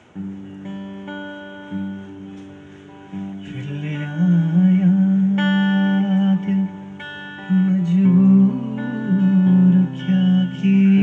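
Acoustic guitar being played in sustained chords, with a man singing along from about four seconds in.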